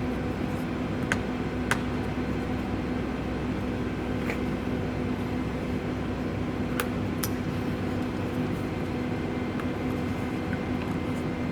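A steady mechanical hum runs throughout, with a few light, sharp clicks and knocks of plastic parts being handled as number plate light units and their wiring are pushed into the bumper.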